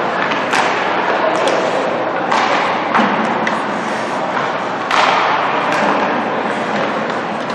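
Ice hockey play in a rink: several sharp knocks of sticks, puck and boards over a steady noisy wash of skates on ice and crowd chatter.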